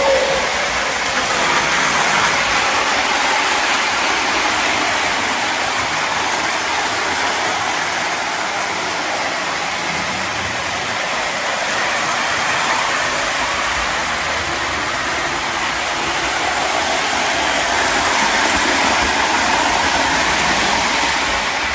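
Lionel 2046 toy steam locomotive running steadily around the track with a heavy tender and five aluminum passenger cars in tow: a continuous whirring rumble of the electric motor and metal wheels on the rails, swelling and fading a little as the train circles.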